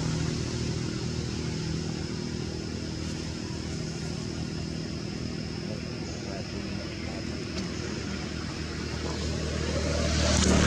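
Steady low engine hum of a motor vehicle running nearby, swelling louder near the end.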